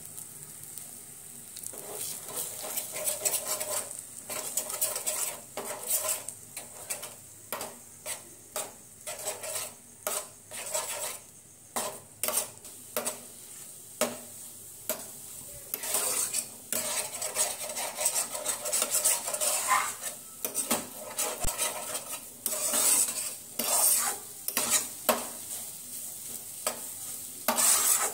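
Eggs, onion and tomato sizzling in a frying pan, scrambled with a spatula that scrapes and knocks against the pan in quick, irregular strokes from a few seconds in.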